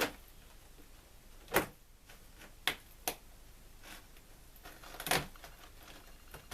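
Five sharp clicks and knocks, the loudest about a second and a half in, as lengths of OO gauge model railway track are prised up and handled.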